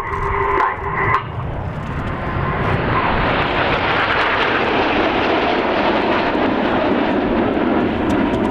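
Jet noise from the Red Arrows' BAE Hawk T1 trainers, each with a single Adour turbofan, passing overhead in formation: a steady rushing roar that swells from about three seconds in and holds.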